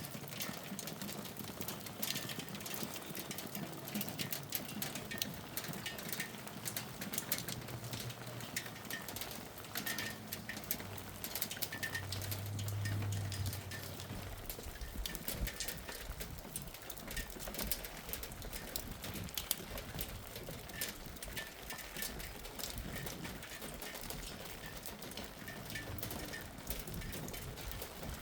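Hailstones pattering on a surface: a dense, irregular stream of small ticks.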